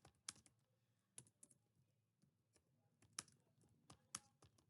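Faint keystrokes on a computer keyboard: about ten sparse, irregular key presses of someone typing.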